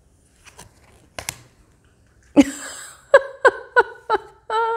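Tarot cards handled and slid in the hand, with a few light clicks and rustles. Then, about halfway through, a woman's voice makes a delighted run of short pitched sounds, like a chuckle, ending in a held "ooh".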